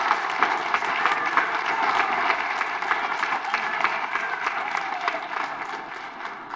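Audience in a chamber applauding, a dense patter of many hands clapping with a few voices calling out among it; the applause begins to die away near the end.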